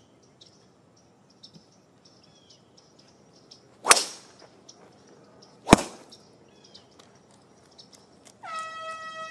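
A driver striking a golf ball off the tee with a sharp crack about four seconds in, then a second sharp crack nearly two seconds later as the driver is slammed into the turf. About a second before the end a steady horn starts and holds: the horn signalling that play is suspended. Birds chirp faintly throughout.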